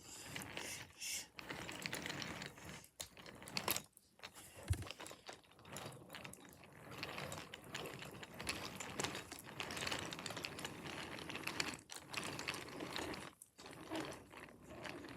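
Wooden toy trains running along a wooden track, a continuous clicking and rattling of wheels and small mechanisms.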